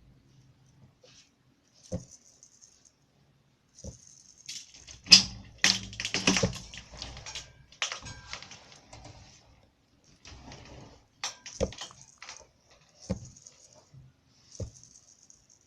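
Irregular clicks and rattling of small objects being handled, with a dense cluster of clicks about four to seven seconds in and single clicks scattered before and after.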